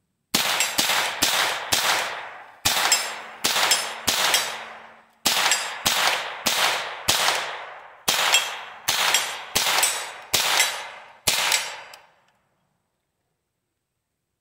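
AR-15 pistol with a CMMG .22LR conversion kit firing semi-automatic .22LR rounds: sixteen shots at about two a second, in strings of four, three, four and five with short pauses between. Each shot is followed by a brief ringing echo, and the kit keeps cycling from shot to shot.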